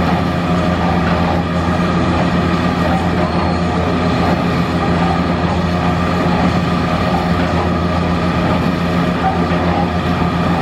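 A steady, even engine drone with no changes in speed, from an engine running close by.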